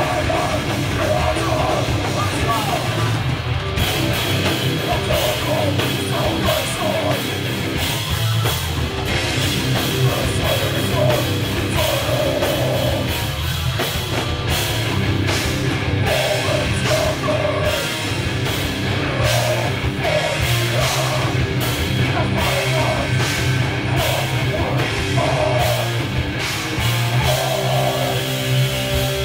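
Heavy band playing live: distorted electric guitars, bass and a pounding drum kit, with a vocalist shouting into the microphone.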